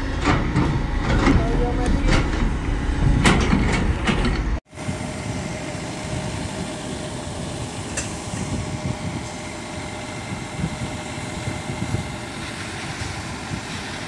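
A long-reach excavator working a trench, with a heavy low rumble and repeated knocks and clanks. About four and a half seconds in, the sound cuts to a water tanker truck's engine running steadily while it sprays water.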